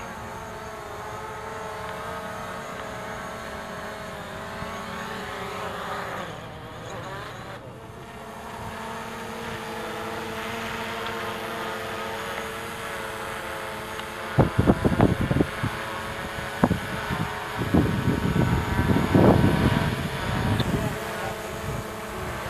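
DJI quadcopter drone's propellers buzzing overhead, a steady whine of several tones whose pitch slides about six seconds in. From about fourteen seconds in, loud low bursts of wind buffet the microphone.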